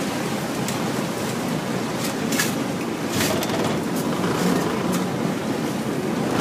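Steady noise of a river passenger boat under way, its engine and water rushing alongside the hull, with a few short sharp clicks scattered through it.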